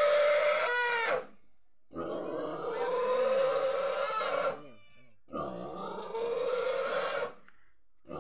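A pig squealing as it is held down and roped for slaughter: long drawn-out squeals of two to three seconds each, with short breaks between.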